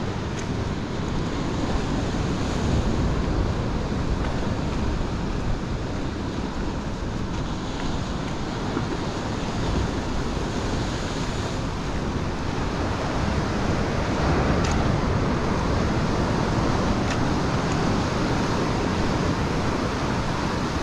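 Ocean surf breaking on rocky shore in a steady, continuous wash, with wind buffeting the microphone.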